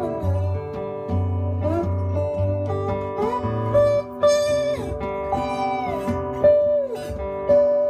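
Two acoustic guitars playing an instrumental passage: one keeps a steady accompaniment with repeated low notes while the other plays a lead line whose held notes slide up and down in pitch.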